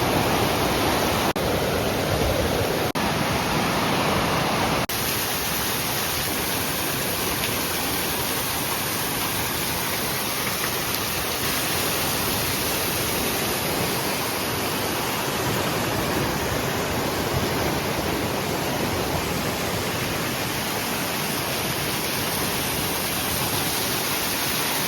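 Steady rushing of river water, a continuous even hiss, with slight shifts in the sound about one, three and five seconds in; the river is running high.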